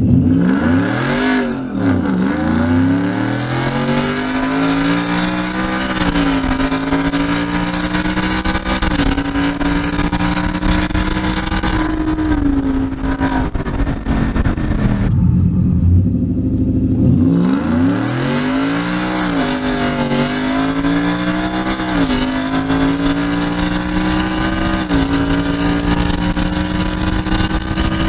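Ford Coyote 5.0 V8 in an F-150 accelerating hard through several upshifts, heard from inside the cab. The engine note climbs and drops back at each shift, eases to a lower, quieter note about halfway through, then climbs through the gears again.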